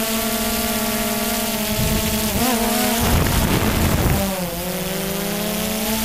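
DJI Phantom 2 quadcopter's electric motors and propellers whining steadily, picked up by the GoPro mounted on the drone. The pitch dips and wavers twice as the motors change speed. For about two seconds in the middle a low rumble of wind buffets the microphone.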